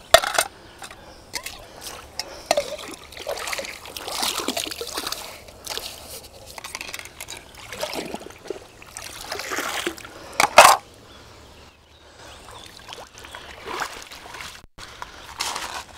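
Hands scooping and splashing river water while washing in the shallows: irregular splashes and trickling, with two sharper, louder splashes, one at the very start and one about ten and a half seconds in.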